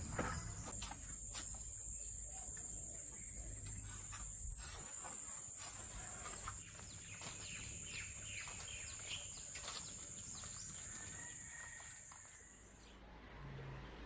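Steady high-pitched insect drone, which cuts off near the end, with scattered short bird chirps over it.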